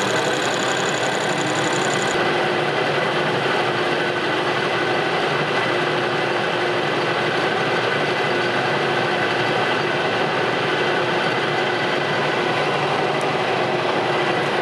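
Metal lathe running steadily while the tool takes a light facing pass across the face of an arbor press's daisy wheel, cleaning up the beat-up surface.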